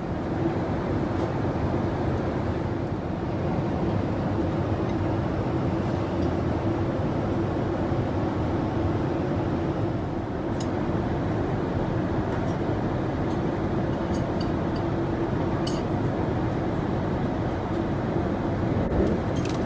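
Steady in-flight cabin noise of a Boeing 787-8 airliner: an even rush of air and engine drone with a steady hum underneath, and a few faint ticks.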